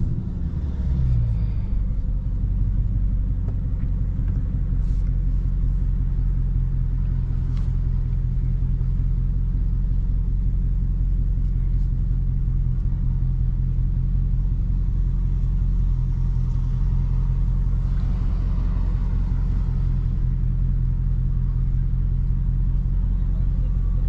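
Dodge Charger Daytona 392's 6.4-litre HEMI V8 idling steadily with the car at a standstill. The engine note falls off in the first second as the car rolls to a stop, then holds a steady idle.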